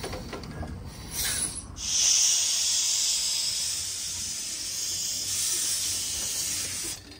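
Miniature-railway steam locomotive letting off steam: a short hiss about a second in, then a loud, steady high-pitched hiss that stops abruptly near the end.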